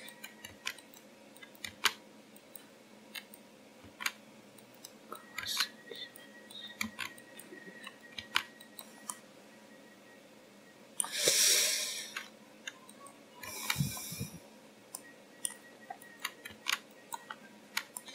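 Scattered sharp clicks of a computer mouse and keyboard as a 3D model is edited, with two short rushes of hissing noise about eleven and thirteen and a half seconds in.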